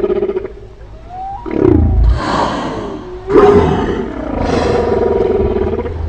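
Humpback whale song: long held tones and slow pitch glides, broken by two louder, rough calls about a second and a half and three and a half seconds in.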